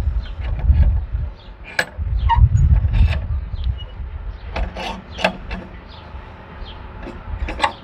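Bench vise being tightened on an upside-down Coleman lantern fuel tank: scattered metal clicks and knocks with rubbing and low rumbling handling noise.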